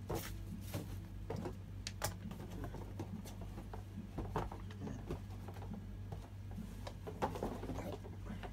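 Paper and plastic packaging rustling and crinkling as an instruction sheet and a parts packet are handled, with scattered light clicks and taps, over a steady low hum.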